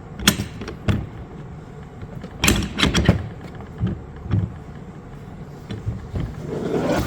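Metal parts of a hydraulic cable cutter's head clicking and knocking as the blade assembly shaft is worked into place through the head and blades. The sharp knocks come irregularly, with a cluster of them about two and a half to three seconds in.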